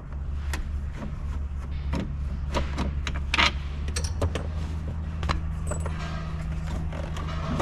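Irregular clicks, taps and knocks of a screwdriver and plastic trim being handled at a Jeep TJ's steering column while the lower panel and column covers are taken off, the sharpest knock about three and a half seconds in, over a steady low hum.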